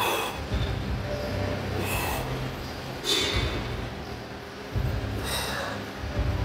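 A man's short, hissing breaths, four in about five seconds, as he strains to hold bodybuilding back poses.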